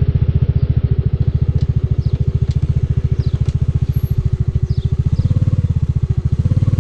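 Motorcycle engine running at low, steady revs with an even, pulsing beat.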